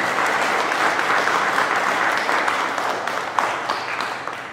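A room full of people clapping: dense, steady applause that tapers off near the end.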